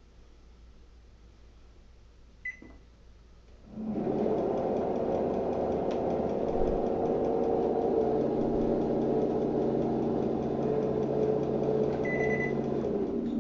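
A short console beep, then a NordicTrack C2300 treadmill's drive motor and new walking belt start up about a second later and run with a steady hum, on a test run after the belt was tensioned. A second short beep sounds about 12 seconds in, and the hum dies away at the end.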